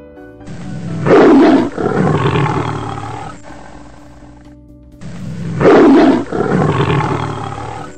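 Lion roar sound effect, played twice about four and a half seconds apart. Each time a loud roar opens and then tails off over about three seconds.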